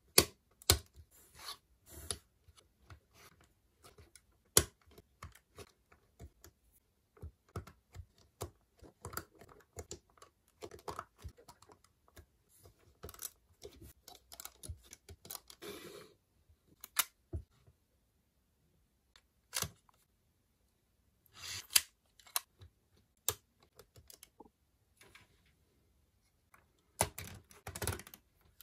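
Plastic Lego bricks clicking and snapping together as they are pressed into place, with light rustling of pieces between the irregular sharp clicks and a couple of brief silent gaps.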